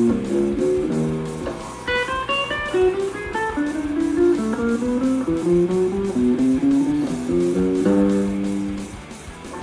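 Seven-string electric guitar being play-tested after a new bridge and setup: single-note melodic phrases, with quick runs up into higher notes about two seconds in and again near the end.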